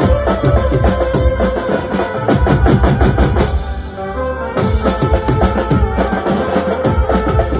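Music with a strong, driving drum beat and a bass drum; the drums drop out for about a second near the middle, then come back.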